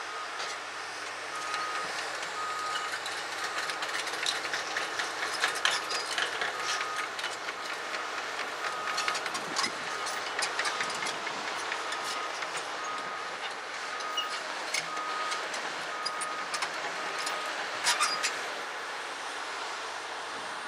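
Komatsu PC200LC tracked excavator travelling, its travel alarm beeping about once a second while the steel tracks clank and squeak; the beeping stops near the end with a louder clank.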